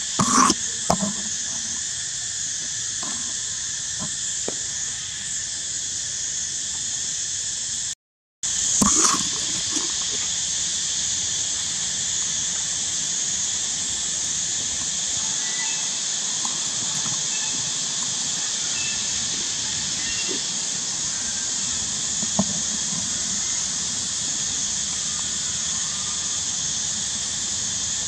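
Steady, high-pitched drone of insects outdoors. It cuts out for a moment about eight seconds in, and there are a few soft knocks near the start.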